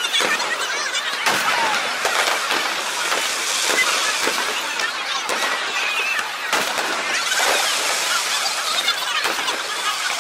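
Fireworks popping and crackling in quick succession over the steady chatter of a crowd.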